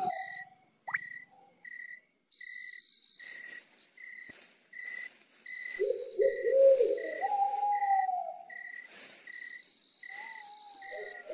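Night ambience of insects: a high trill that comes and goes, and a short chirp repeating about every 0.7 seconds. From about six seconds in, low wavering hoot-like calls join in.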